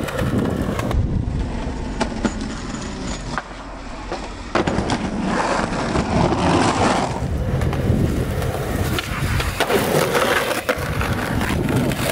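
Skateboard wheels rolling over concrete and asphalt, with several sharp clacks of the board hitting the ground.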